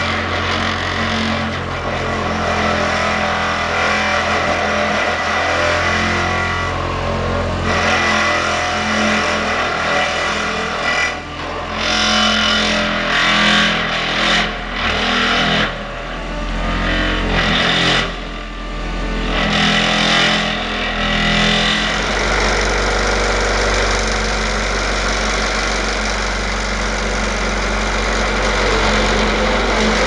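Excavator-mounted vibratory hammer (vibro sinker) driving a 12 m steel sheet pile into the ground, a loud continuous vibrating drone with the Kobelco excavator's diesel engine running under it. The sound wavers and dips repeatedly between about 11 and 22 seconds in, then settles into a steadier, deeper hum.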